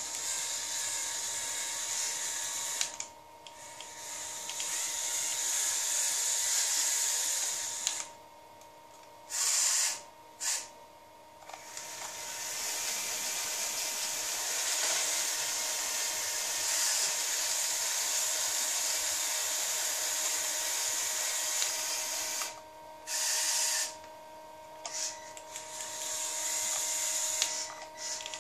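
Electric motors of a Lego Technic RC lawn mower whirring at a high pitch. They stop for a moment several times and start again.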